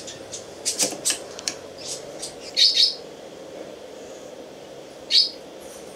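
Short high squeaks and scrapes of a plastic shotgun hull being worked in a homemade crimping press, several in the first three seconds and one more about five seconds in.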